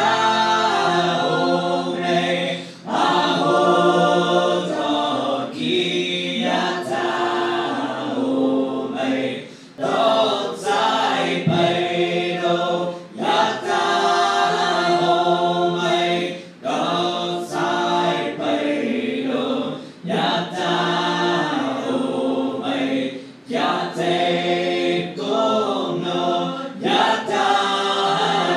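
A small group of voices singing a cappella in harmony, in short phrases with brief breaks between them.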